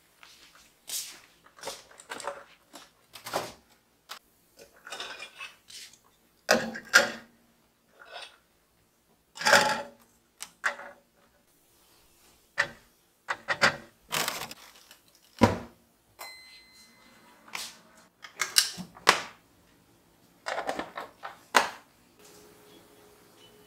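Handling sounds of plastic and glass baby-bottle gear and kitchen appliances: a string of irregular clicks, taps and clatters as items are picked up, set down and moved.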